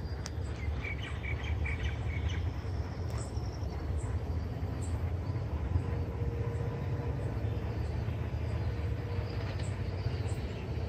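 Steady low rumble of a distant WDG-3A diesel locomotive running, with birds chirping over it and a quick series of chirps about a second in.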